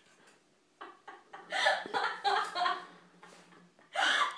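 Laughter: a quick run of pulsing bursts about halfway through, then a sudden loud burst near the end.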